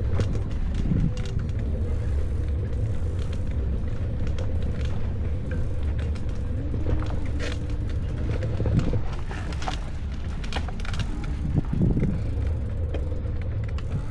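Bicycle ride: a steady low rumble of riding noise, with scattered light clicks and rattles.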